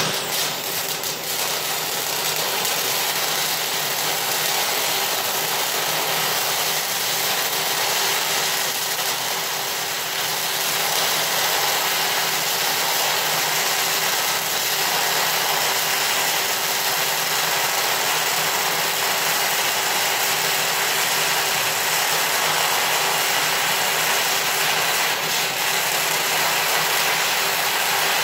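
MIG welding arc burning steadily on a structural steel I-beam: one long, unbroken bead with an even hiss that holds a constant level throughout.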